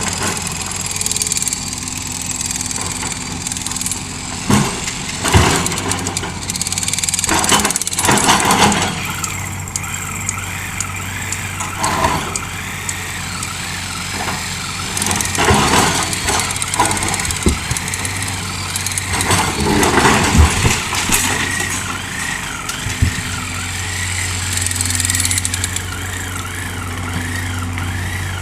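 Hitachi excavator's diesel engine running with a steady low hum, with repeated clanks and knocks of the working machine scattered throughout. A high wavering whine joins about a third of the way in.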